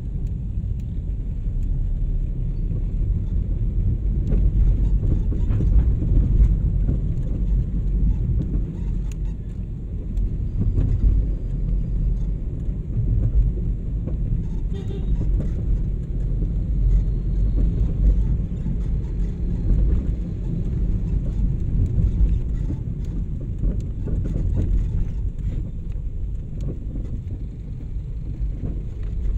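Steady low rumble of a taxi's engine and road noise, heard from inside the cabin as the car drives through traffic.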